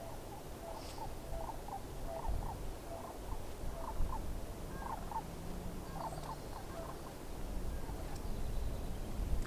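Short animal calls repeated many times, sometimes several a second, over a low wind rumble.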